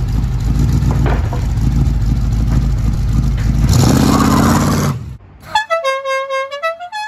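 Loud vehicle engine rumble with a horn sounding near its end, cutting off about five seconds in, followed by a short tune of separate horn-like notes stepping up and down.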